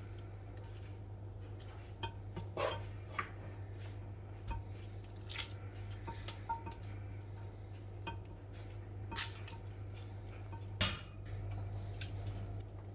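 Spoon and dishes clinking and scraping: a scattered run of sharp knocks over a steady low hum.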